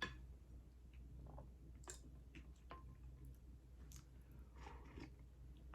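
Faint chewing with scattered small mouth clicks, of someone eating close to the microphone.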